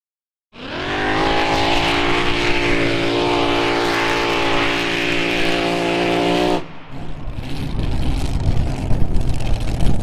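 A Mini Modified pulling tractor's racing engine held at full throttle under load, a loud, steady, high-pitched scream that starts suddenly about half a second in. About six and a half seconds in it cuts off abruptly into a rougher, lower rumble that builds again.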